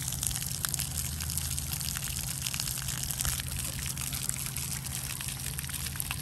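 Splash-pad fountain jets spraying and splattering onto wet concrete: a steady watery hiss dotted with small splashes, with a steady low hum underneath.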